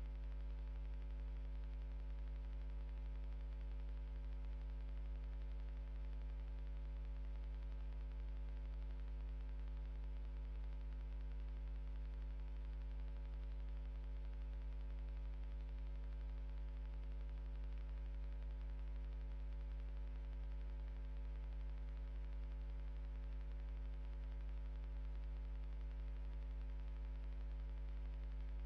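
Steady electrical mains hum: a low, unchanging drone with a ladder of higher buzzing overtones over faint static hiss.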